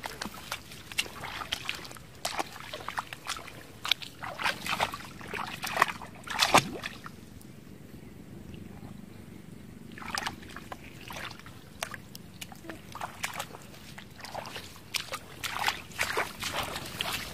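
Irregular splashing and rustling in shallow muddy water and wet grass, with a louder splash about six and a half seconds in and a quieter pause in the middle.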